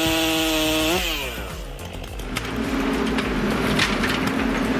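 Chainsaw running at full throttle; about a second in its pitch jumps up briefly, then falls away as it comes off the throttle. After that a lower, steadier engine hum comes in, with scattered sharp cracks and clicks.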